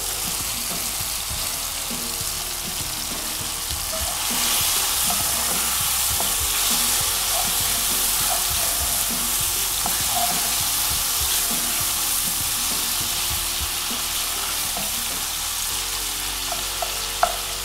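Shrimps, tomatoes and onions frying in hot oil in a cast iron wok, sizzling steadily while a wooden spoon stirs them, with small taps and scrapes of the spoon against the pan. The sizzle gets louder about four seconds in.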